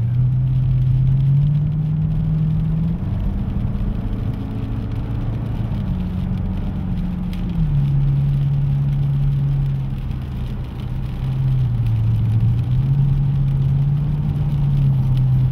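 Chevrolet Camaro SS pace car's V8 engine heard from inside the cabin at speed. Its pitch climbs and drops in steps several times as the car accelerates and lifts through the lap.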